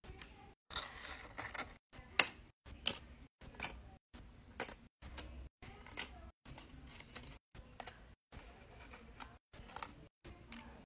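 Small paper cutouts being handled with tweezers and fingers: a faint string of light paper clicks, taps and rustles, about one or two a second, the sharpest about two seconds in.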